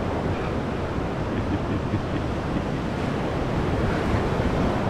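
Sea surf washing steadily onto the beach, with wind rumbling on the microphone.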